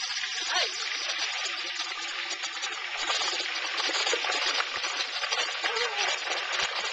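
Hot oil in a propane turkey fryer pot sizzling and crackling hard as a whole turkey is lowered into it: a steady, dense hiss thick with crackles.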